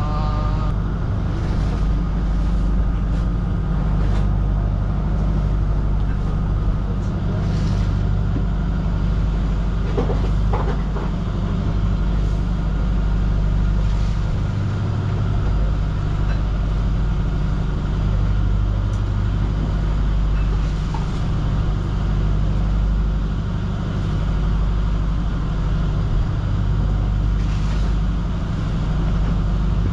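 Steady low drone of a fishing boat's onboard motor running, with a few faint short clicks about ten seconds in.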